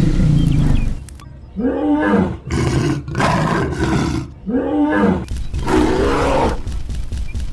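Dinosaur roar sound effects: four growling roars over about five seconds, each rising then falling in pitch. They follow a loud, low rumbling rush in the first second.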